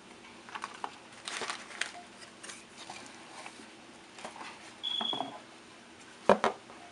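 Paper wrapping and tissue paper rustling in short bursts as a ribbon-tied paper package is handled and lifted out of a cardboard box. There is a brief high squeak about five seconds in, and a sharp knock near the end.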